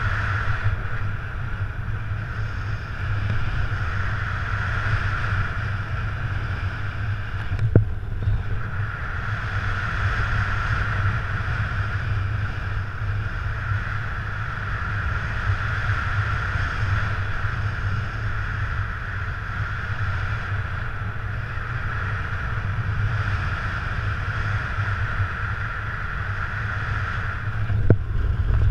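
Steady rush of airflow over the microphone of a camera carried on a paraglider in flight, a low rumbling buffet under a hiss. Two brief knocks break it, one about a third of the way in and one near the end.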